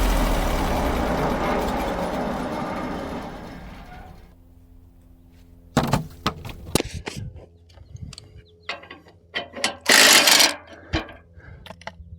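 Sawmill engine winding down, its noise fading away over about four seconds, followed by a string of clanks, clicks and knocks with one brief louder rush of noise near the end.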